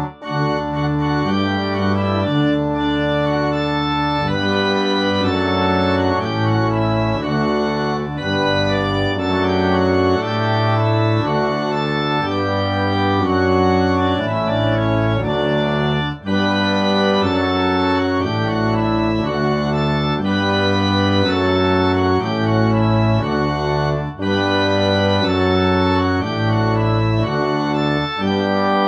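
Organ playing slow, sustained chords that change every second or two, with brief breaks near the start and about halfway through.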